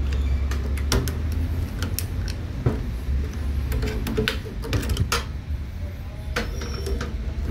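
Scattered sharp clicks and small knocks of pliers and plastic wire connectors as wiring is pried off inside a microwave oven, over a steady low hum.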